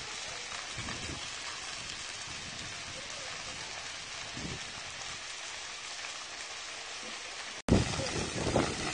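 Dry grass and reeds burning with a steady crackle. After a brief break near the end it is louder, with some low swells.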